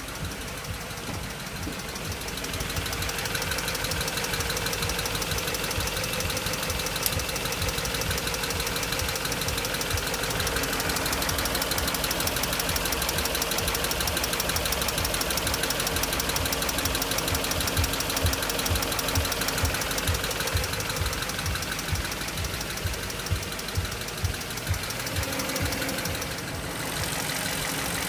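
BMW X5 engine running steadily with a fast, even ticking noise, heard after a timing job on the engine. The level dips briefly near the end.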